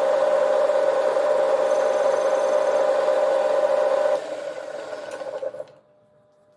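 Metal lathe running with a steady whine. It drops off sharply about four seconds in, and a fainter sound fades away over the next second and a half as the machine stops.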